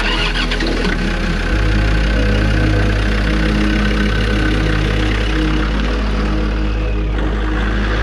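Land Rover Defender's engine running steadily, coming in suddenly at the start.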